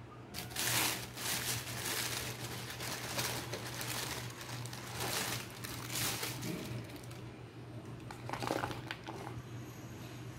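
Thin plastic carry bag crinkling and rustling in repeated bursts as fried gathiya snack is taken out of it onto a plate, with one more rustle near the end.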